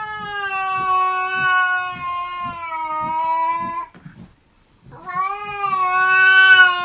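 Silver tabby cat yowling: two long, drawn-out calls at a nearly steady pitch. The first lasts about four seconds, and the second starts about five seconds in.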